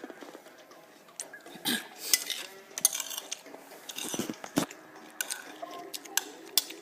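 Hard objects clattering and clinking in an irregular string of sharp knocks and clicks, loudest around two to three seconds in and again at about four and a half seconds.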